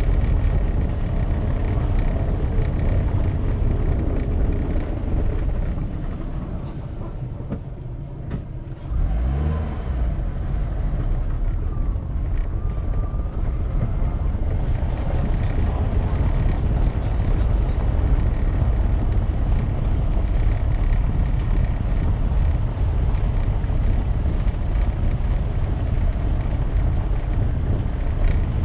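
Car driving on a cobblestone road: a steady low rumble of tyres and engine. The rumble eases off about six seconds in as the car slows, then the engine note rises about nine seconds in as it pulls away again.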